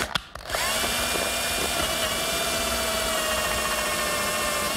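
Cordless drill running steadily, its bit enlarging a hole in a black iron pipe. The motor spins up about half a second in and then holds an even pitch.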